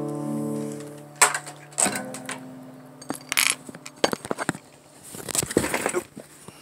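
Acoustic guitar chord ringing out and fading, then handling noise: a run of sharp clicks, knocks and rustling as the camera is picked up and moved.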